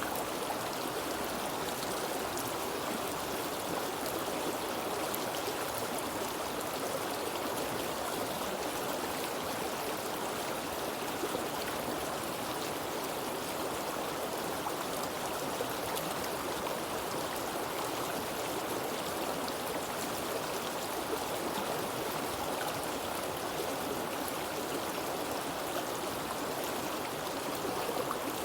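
Water flowing steadily in a stream, a constant rushing and gurgling with occasional small splashes.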